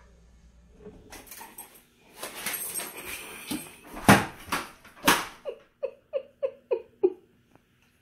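Loud scuffling and rattling with two sharp knocks, then an Alaskan malamute gives six short whining calls in quick succession, each dropping in pitch.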